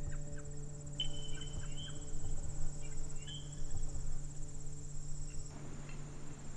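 Insects chirring steadily in a high, continuous trill, with a couple of short rising whistles over it. A low steady hum sits underneath and drops out near the end.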